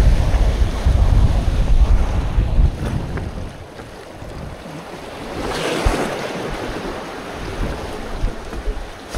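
Wind buffeting the microphone over waves washing against shoreline rocks. The wind rumble is heaviest in the first three seconds, and a louder surge of water comes about six seconds in.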